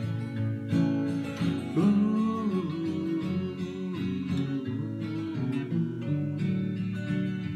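Steel-string acoustic guitar played with a capo on the neck: an instrumental passage of changing chords.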